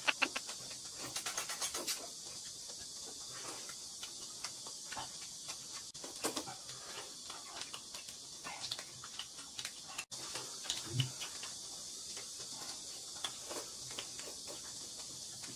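Close-up eating sounds: noodles slurped and chewed, with soft crackles and clicks of a plastic snack wrapper being peeled, over a faint steady hiss.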